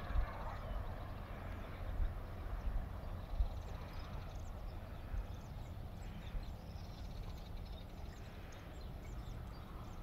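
Open-air ambience: a steady low rumble of wind on the microphone, with faint, scattered short high-pitched chirps.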